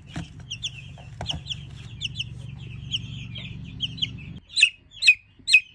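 Two-week-old Cornish cross broiler chicks peeping continuously in short, falling chirps over a steady low hum that stops about three-quarters of the way through. Near the end, four louder falling peeps stand out.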